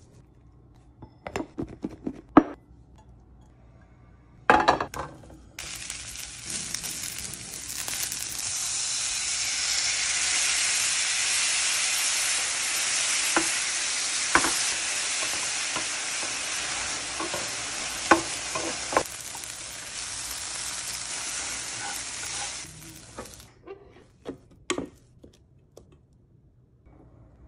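Food frying in a pan: a steady sizzle that starts about five seconds in and stops a few seconds before the end, with occasional knocks of stirring. Before the sizzle come a few short crackles of food being broken apart by hand and a sharp clatter.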